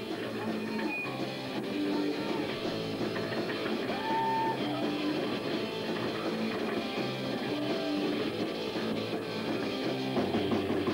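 Rock band playing live, with electric guitar.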